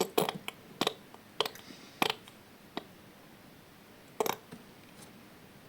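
A handful of light, sharp taps and clicks at irregular spacing, about six of them, the loudest a little past four seconds in, from hands handling small hard objects.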